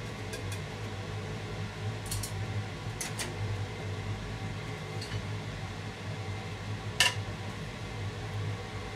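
Wooden chopsticks tapping lightly against a nonstick frying pan while an omelette is worked, over a steady low hum. One sharper clink about seven seconds in as the pan is tipped onto a plate to turn the omelette out.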